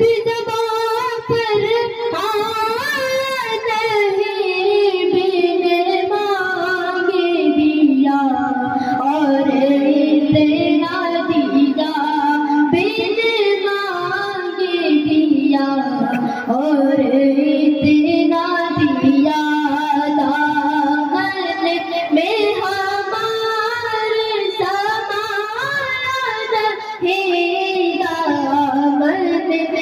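A man singing a naat, an Urdu devotional song in praise of the Prophet, solo into a microphone and carried over a public-address system, in long, wavering, ornamented notes.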